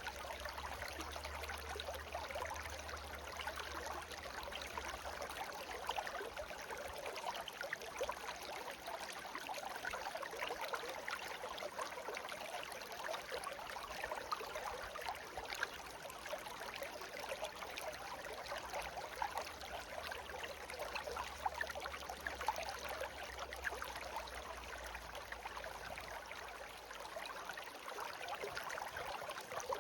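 Shallow brook babbling and trickling with a steady, bright splashing. A low rumble sits under it for the first five seconds and again for about ten seconds in the second half.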